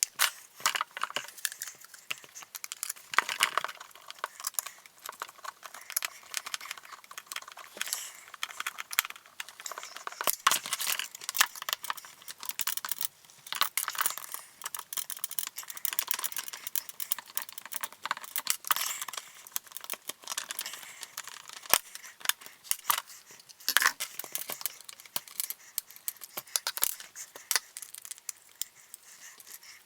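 Rapid, irregular clicking and rattling of small plastic and metal parts and tools being handled as a Traxxas Rustler RC truck is taken apart.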